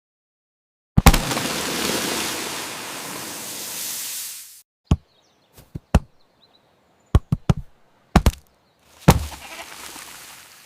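A sharp thump followed by a loud rushing burst of noise that fades over a few seconds, then a scatter of single sharp knocks, and near the end another thump with a shorter rush of noise.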